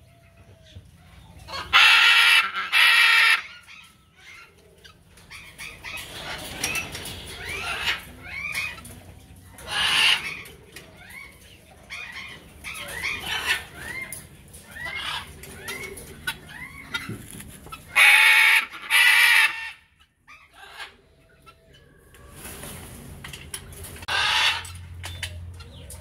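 Macaws squawking: about six loud, harsh screeches, mostly in pairs. Other birds keep up short, quick calls in between.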